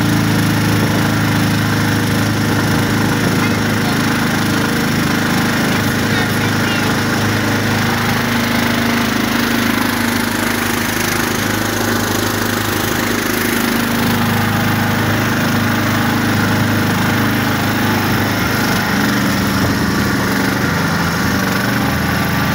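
Engine of a homemade pivoting-axle swamp vehicle running steadily under load as it drives through boggy ground. Its note eases slightly around the middle and then picks back up.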